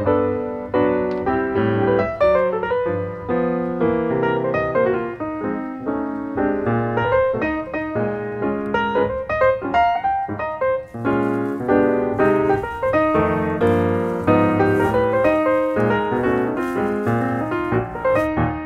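Background piano music, a flowing line of notes played steadily throughout.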